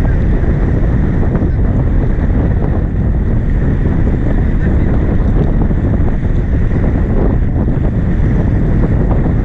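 Steady wind noise buffeting the microphone, over water rushing along the hull of a heeled sailboat under way.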